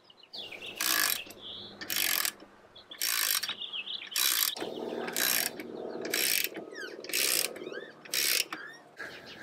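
Socket ratchet turning the screw of a ball joint press, its pawl clicking in short bursts about once a second on each back-swing. The press is being tightened down to push a new leaf spring shackle bushing into the spring eye.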